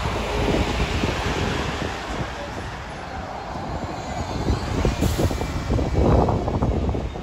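Two buses passing close by in turn, a Stagecoach Enviro400 double-decker and then a Blackpool Transport single-decker, with engine and tyre rumble and wind buffeting the microphone. The sound swells about six seconds in as the single-decker goes by.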